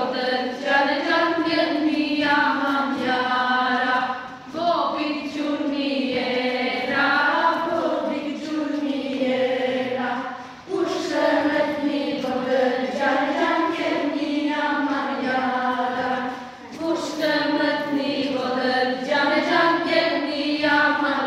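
A group of children and women singing a song together in unison, without instruments, in phrases of about six seconds with a short breath between them.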